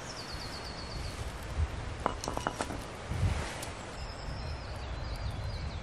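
A small songbird singing: a quick run of short falling high notes at the start and another phrase near the end, with a few light clicks about two seconds in.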